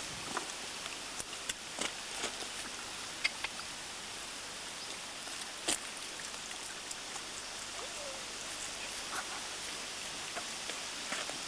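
Stream water running over stones: a steady rushing hiss, with scattered small clicks and rustles, one sharper about six seconds in.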